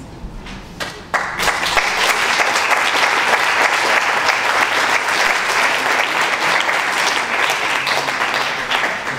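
Audience applauding. A few scattered claps come first, then full, dense applause breaks out about a second in and carries on.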